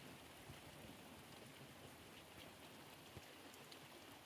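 Faint, steady patter of rain falling on wet, muddy ground and puddles, with scattered small drop ticks.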